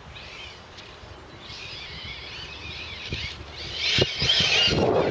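Brushless electric motor and drivetrain of a 1/8-scale Losi 8ight RC car whining, the pitch wavering up and down with the throttle, faint at first and loudest near the end. A few dull thumps come in the last couple of seconds as it runs over bumpy grass.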